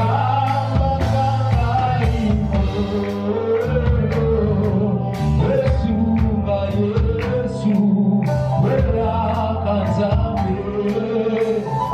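Live gospel worship band playing, with a bass line, guitar, drums keeping a steady beat, and singing over it.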